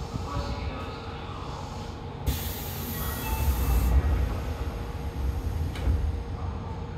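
Eidan 7000 series subway train running, with a steady low rumble of wheels and running gear. About two seconds in, a loud hiss cuts in and stops abruptly about a second and a half later.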